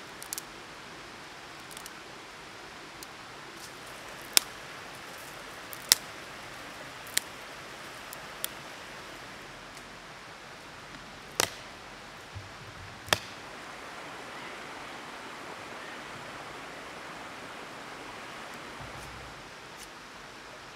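Steady rushing of a river, with about six sharp snaps of dry twigs being broken for kindling, the loudest around four and six seconds in and again around eleven and thirteen seconds.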